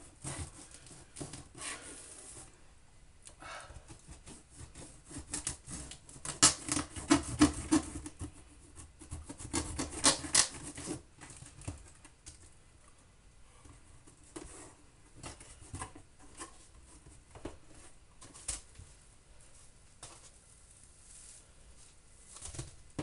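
A knife slitting packing tape on a cardboard shipping box, followed by the cardboard flaps being pulled open and handled. Scratching, rasping cuts come loudest in two spells about six and ten seconds in, then give way to scattered cardboard clicks and rustles.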